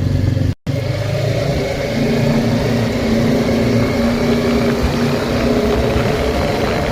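ATV engine running at fairly steady revs, with a brief break to silence about half a second in.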